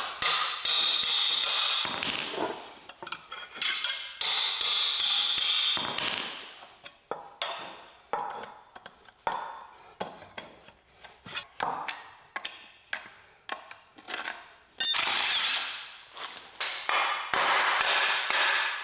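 Hammer blows on a box-end wrench, driving a rusted, seized wheel-cylinder bolt on a steel drum-brake backing plate, the plate ringing after each strike. The blows come in quick runs of several a second, with scattered single knocks between.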